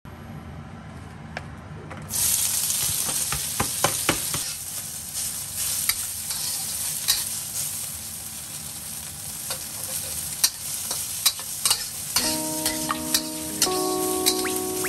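Food sizzling in a hot pan, starting suddenly about two seconds in, with frequent sharp crackles and clicks.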